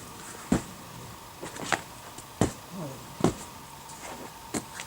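About five sharp knocks and taps, irregularly spaced, over a faint steady background hum.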